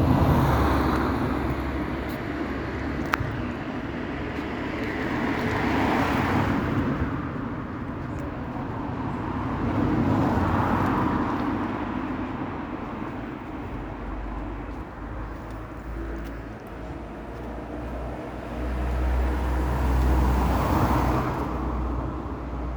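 Road traffic: cars passing one after another, the noise swelling and fading every few seconds, with a deep rumble through the second half.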